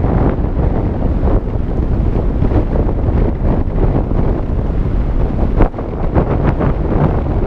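Airflow rushing over a camera microphone in paraglider flight, a loud, steady wind noise with a cluster of sharper buffets about two-thirds of the way through.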